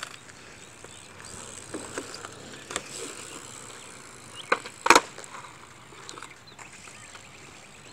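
BMX bike rolling on asphalt, its freewheel ticking lightly as it coasts. Just before the middle come two sharp clacks close together, the loudest sounds.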